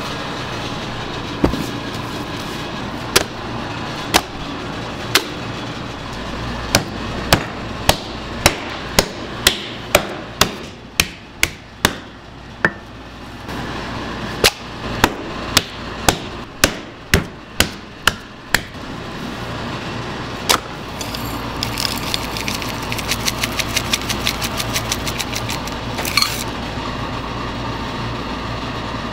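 A series of sharp knocks over a steady low hum: a few spaced strikes at first, then runs of about two knocks a second. Near the end comes a few seconds of fast rattling ticks.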